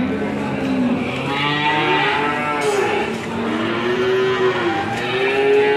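Several cattle mooing at once: long, overlapping calls, each rising and then falling in pitch.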